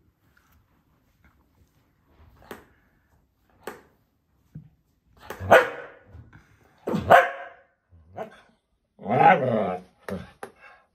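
Scottish terrier barking: two loud single barks about a second and a half apart midway, and a longer bark near the end, with a few quieter sharp clacks of its jaws snapping in between.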